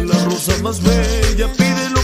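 Dance music with a steady beat, a bass line and a wavering melody on top.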